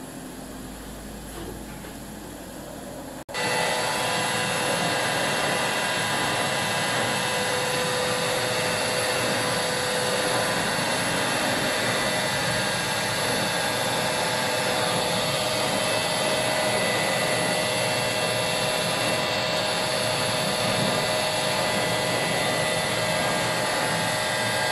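Epilog laser cutter running as it cuts a face-shield headband: a loud, steady whirring noise with several held tones in it. It starts suddenly about three seconds in, after a quieter stretch of low room hum.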